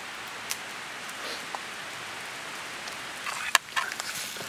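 Smoking campfire hissing steadily, with a few sharp crackles, the loudest a little past three and a half seconds in.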